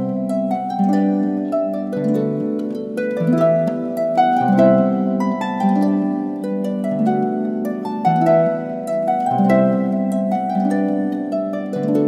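Background music: plucked-string notes played in a quick, continuous pattern over low bass notes.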